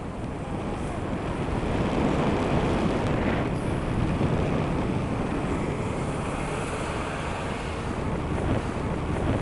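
Steady wind rushing over the microphone, a continuous low rumble of airflow without any distinct tone or event.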